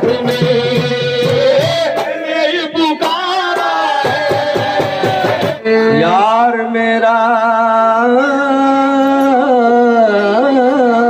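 Sufi devotional kalam sung by a man through a microphone, with instrumental accompaniment. A regular beat runs through the first half, then the singer holds long, wavering notes over a steady drone.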